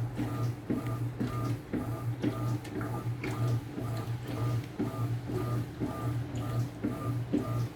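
Electrolux Essential Care LES09 washing machine running a wash cycle: a steady motor hum that breaks off about once a second with a click, in a regular rhythm as the drum or agitator swings back and forth.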